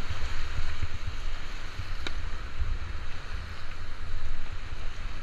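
River water rushing and splashing around an inflatable raft as it runs a minor rapid, under a heavy, uneven low rumble of buffeting on the microphone. One short sharp click about two seconds in.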